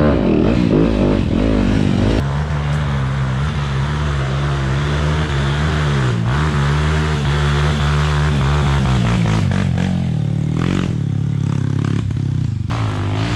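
Dirt bike engine running on a trail ride, its revs rising and falling.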